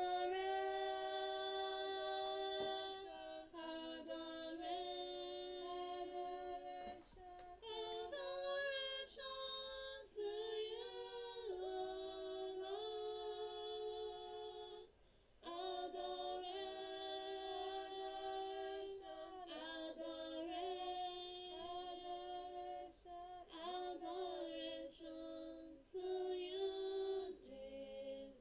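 A woman's voice singing unaccompanied: a slow melody of long held notes, with a short pause about halfway through.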